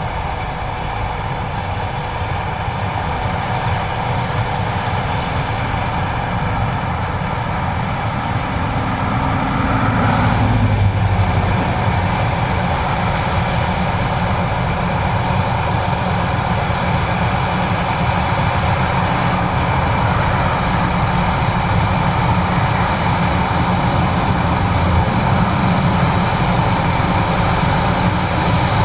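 John Deere 9570STS combine running steadily while harvesting corn, a dense mechanical drone with a brief swell in the low end about ten seconds in.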